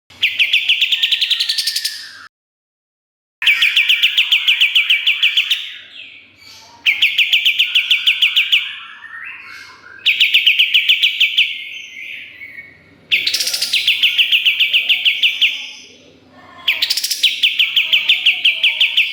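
White-shouldered triller (kapas tembak) singing: a rapid trill repeated in six bursts of two to three seconds each, some bursts opening with a rising sweep.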